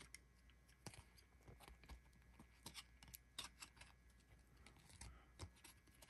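Faint, scattered clicks and light taps of baseball trading cards being flipped through and set down by hand.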